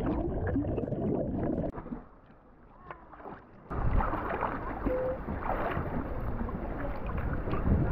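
Water and wind noise around a boat at sea. It drops away about two seconds in and comes back abruptly a little before halfway.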